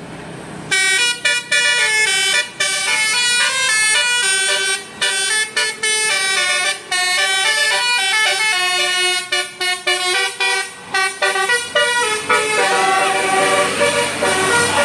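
Tour bus's telolet basuri horn, a multi-tone air horn, playing a loud melody of stepped notes with short breaks. It starts abruptly about a second in. Near the end it changes to a wavering, siren-like wail.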